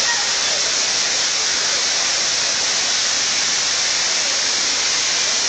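Steady rush of falling water, an even hiss without a break.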